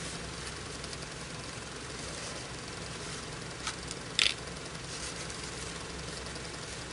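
Handling of a ribbon hair bow and a plastic salon clip: a short, sharp click about four seconds in, with a fainter one just before it, over a steady low hum.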